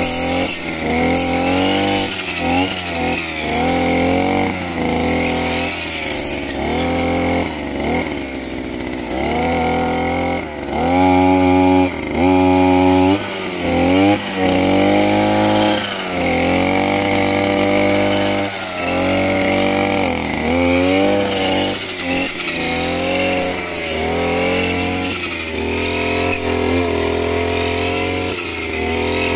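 Kraftech brush cutter's engine driving a 40-tooth circular saw blade, revving up and dropping back again and again.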